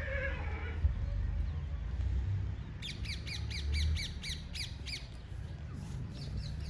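A bird calling in a rapid run of short, repeated calls, about six a second for roughly two seconds starting about three seconds in, with a few fainter calls near the end. A steady low rumble lies underneath.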